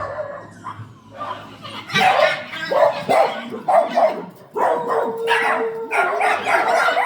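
Repeated harsh animal calls in a run of short bursts starting about two seconds in, with a steady held note through the second half.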